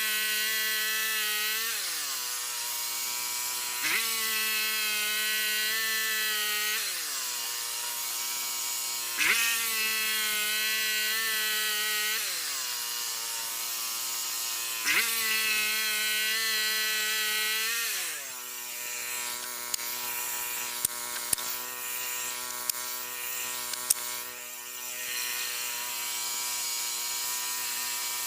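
Frontier OS27 bandsaw sawmill running and cutting a log, its engine note dropping and recovering about every five seconds, each time after a sharp knock. From about two-thirds through it settles into a steadier, lower note with a few sharp clicks.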